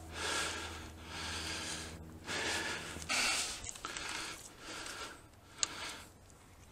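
A player's heavy breathing close to the microphone, about one breath a second, growing quieter after the first few seconds, with a single sharp click about five and a half seconds in.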